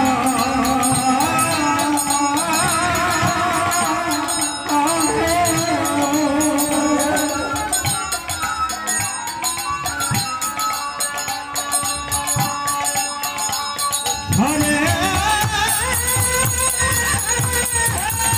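Live kirtan music: two khol clay drums beating, a harmonium playing the melody and small kartal hand cymbals ringing, with a sung voice that drops out in the middle and comes back about fourteen seconds in.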